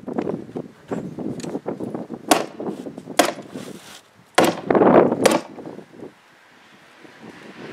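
Four sharp snaps of a staple tacker driving staples through roll roofing, about a second apart, between bursts of rustling and handling of the material.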